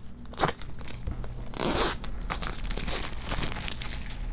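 Clear plastic wrap being torn and pulled off a small cardboard retail box, crinkling, with the loudest rip about one and a half seconds in.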